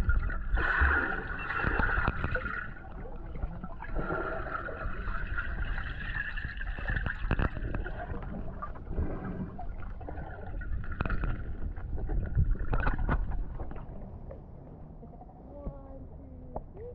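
Muffled water noise from a camera held underwater: sloshing and gurgling with frequent small knocks and clicks against the housing, over a steady high hum. It quietens near the end as the camera comes up to the surface.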